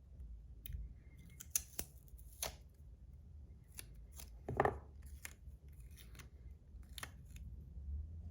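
Scissors snipping with irregular sharp clicks, the loudest and longest cut about halfway through, trimming tape to fit the slider's plates.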